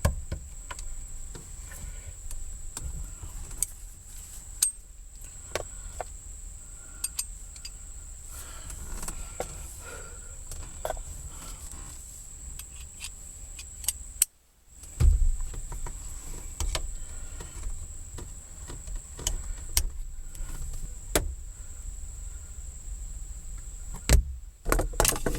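Scattered metallic clicks and light knocks of hand tools and shifter parts being worked on, over a steady high-pitched whine and a low rumble. The sound cuts out briefly about fourteen seconds in.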